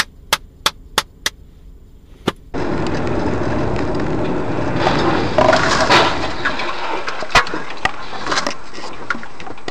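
A run of sharp clicks, about three a second, then a sudden switch to steady road noise heard inside a moving car. About halfway through comes a car crash: a dense burst of crunching metal and breaking parts, followed by a few sharp knocks of debris.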